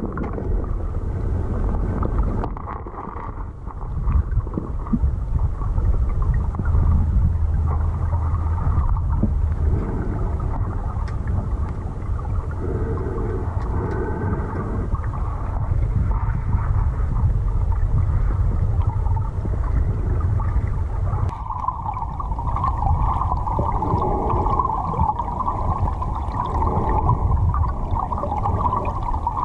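Muffled rushing and rumbling of river current heard through a camera held underwater. The rushing grows louder and brighter about two-thirds of the way in.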